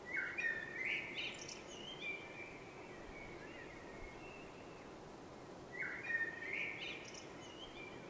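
A songbird singing the same short phrase twice, about six seconds apart: a quick run of whistled, gliding notes followed by a few fainter trailing notes. A steady low background noise runs underneath.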